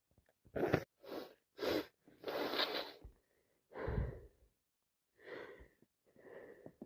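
A person with a cold breathing in short, noisy, catching breaths between sneezes: about seven in all, one longer breath about two seconds in, the later ones fainter, building toward the next sneeze.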